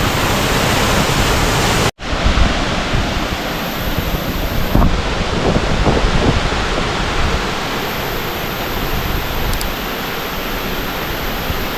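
Steady rush of water from a large waterfall, an even noise with no pauses. It cuts out for an instant about two seconds in, then carries on.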